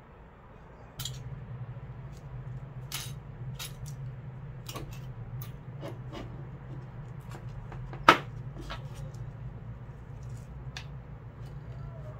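Thin metal strips and probe leads handled on a wooden bench: scattered light clicks and metallic clinks, with one loud sharp snap about eight seconds in, over a steady low hum that starts about a second in.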